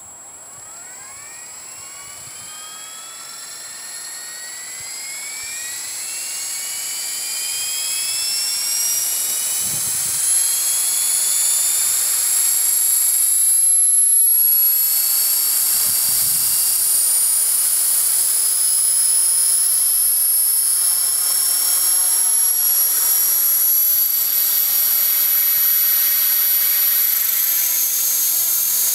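Align T-Rex 450 Pro electric RC helicopter with a five-bladed rotor head spooling up: the brushless motor and gear whine rises in pitch and loudness over about fourteen seconds, then holds steady as the rotor reaches speed.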